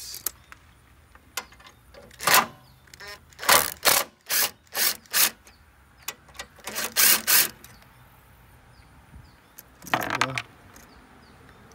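Hand ratchet on a long socket extension being worked back and forth to loosen a fastener: short bursts of rapid clicking, a few a second, in three groups, with a pause near the end.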